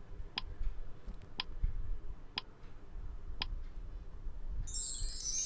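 Quiz countdown-timer sound effect: four ticks, one a second. As the count reaches zero near the end, a high shimmering chime sets in to signal that time is up.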